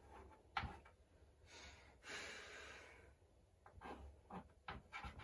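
Faint chalk taps and scratches on a chalkboard as numbers are written, with a soft hiss lasting well over a second beginning about a second and a half in.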